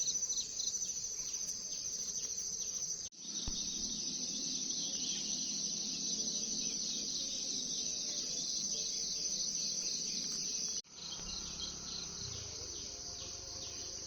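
Insects chirring in a high, steady chorus, pulsing evenly at times. The sound breaks off sharply twice, about three seconds in and near the end, where clips are joined.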